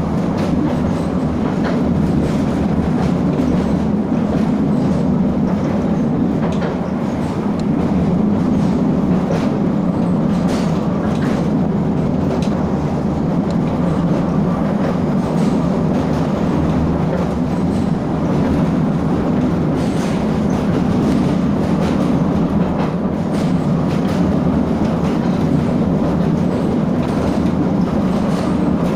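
Train running steadily: a continuous low rumble with faint irregular clicks of the wheels on the track.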